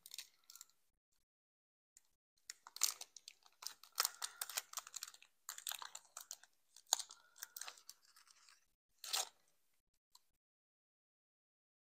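Foil Pokémon trading-card booster pack wrapper crinkling and tearing as it is opened by hand, in irregular crackly rustles that stop about nine seconds in.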